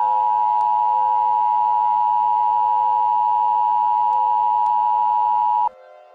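Emergency Alert System attention signal: a loud, steady two-tone alert tone that cuts off suddenly near the end, leaving a faint drone.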